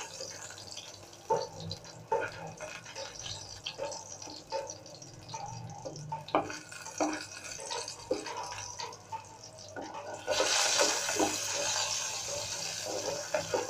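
Pointed gourd pieces sizzling in hot oil in a frying pan while a silicone spatula lifts them out, with scattered soft knocks and scrapes of the spatula on the pan. The sizzle grows louder about ten seconds in.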